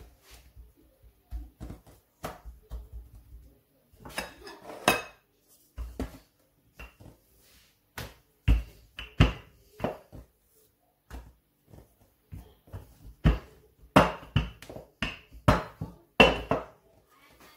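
Wooden rolling pin rolling out a ball of dough on a hard countertop, with irregular sharp knocks and clatters as the pin and dough hit the counter, loudest in clusters past the middle and near the end.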